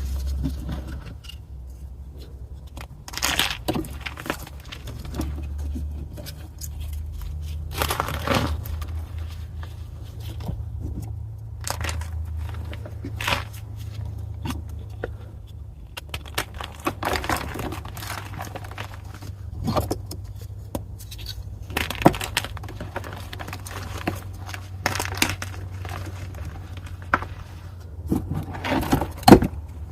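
Pieces of gym chalk (magnesium carbonate) being crushed and crumbled, giving irregular crunches and scrapes every few seconds over a steady low hum.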